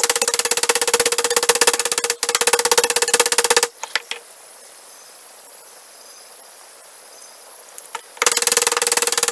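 Small hammer tapping very rapidly on the rivets of a Swiss Army knife held in a bench vise, peening them over, fast-forwarded so the blows run together into a dense rattle. A little under four seconds in the hammering stops, leaving a few light clicks, and it starts again about a second before the end.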